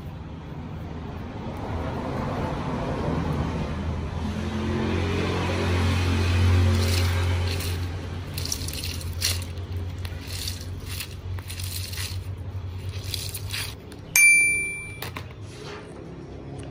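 Mesh stress ball filled with gel water beads being squeezed by hand, giving short wet squelching crackles, over a low hum that swells and fades. A single bell-like ding rings out and dies away near the end.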